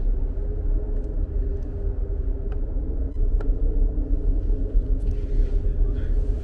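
Cable car cabin running along its cable, heard from inside: a steady low rumble with a constant mechanical hum and a few faint ticks.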